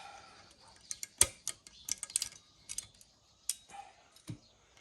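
Sharp metallic clicks and taps at uneven intervals from compressing a valve spring on a Ford single-cam cylinder head to get it off the valve. The loudest tap comes about a second in.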